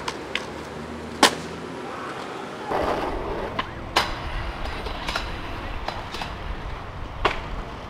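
Skateboard on concrete and metal rails: wheels rolling with a low rumble, broken by a series of sharp board clacks from pops, rail contact and landings, the loudest about a second in, with a short grinding scrape around three seconds in.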